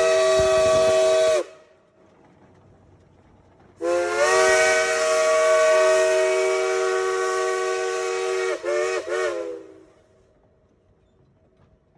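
Steam locomotive whistle, Cass No. 4's Shay, blowing a chord of several notes: a blast that cuts off about a second in, then after a short pause a second, longer blast of about six seconds that flutters briefly near its end before stopping.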